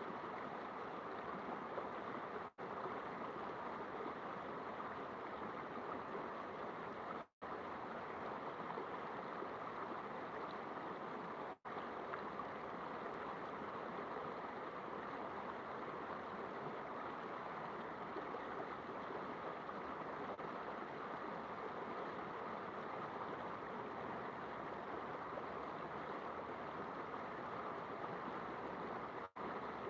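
River water flowing steadily, an even rushing noise, cut by a few split-second dropouts where the sound goes silent.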